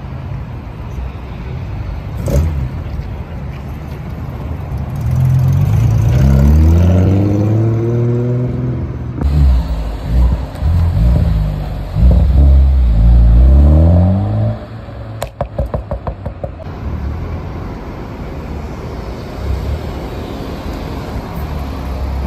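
Modified sports cars' engines revving as they pull slowly past: one rising rev about six seconds in, then several rises and falls in pitch, then a quick run of sharp pops. After that comes a steadier, quieter low engine note.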